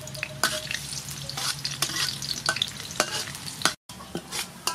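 Chopped garlic sizzling in hot soybean oil in a metal wok, with a metal spatula scraping and clicking against the pan as it is stirred. The sound drops out for an instant a little before the end.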